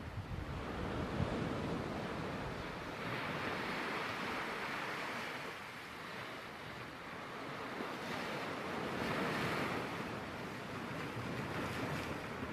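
Sea surf washing steadily, with wind on the microphone; the wash swells and eases twice.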